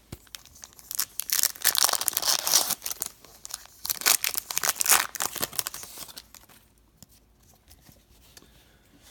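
A hockey card pack wrapper being torn open and crinkled: a run of ripping and rustling for about five seconds, then quieter handling near the end.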